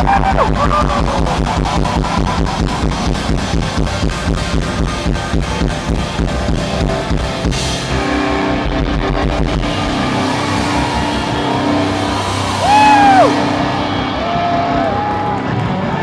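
Grunge rock band playing live through a PA: distorted electric guitar and a drum kit. A fast even drum beat drives the first half, the band then moves to held chords, and a note bends up and down about three quarters through.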